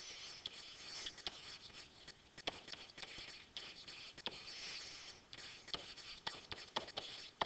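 Faint scratching and small irregular taps of a pen stylus writing by hand on a digital writing surface.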